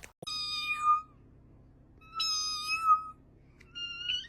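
Cat meowing three times: two long, even-pitched meows, then a shorter one rising in pitch near the end.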